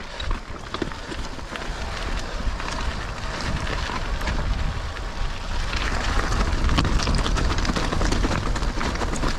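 Mountain bike clattering and rattling down a rough, rocky descent, tyres rumbling over stones with many small knocks, and wind buffeting a chest-mounted action-camera microphone.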